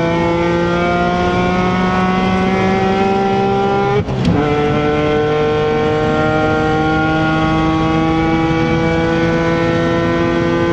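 BMW Z4 M Coupé's S54B32 naturally aspirated straight-six accelerating hard, heard inside the cabin, its note climbing steadily. About four seconds in the pitch drops suddenly, then climbs again.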